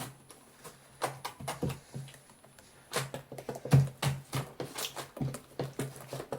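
Slime being squeezed and kneaded by hand, making an irregular run of sticky clicks and pops that come thicker in the second half.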